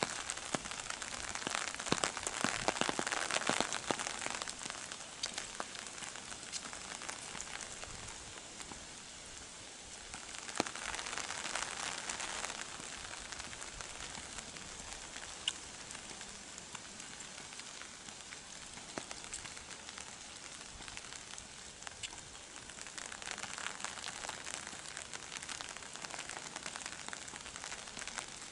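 Steady rain pattering on an umbrella held overhead: a dense hiss of drops with single louder drips ticking through. It swells for a few seconds near the start, again around ten seconds in, and once more past twenty seconds.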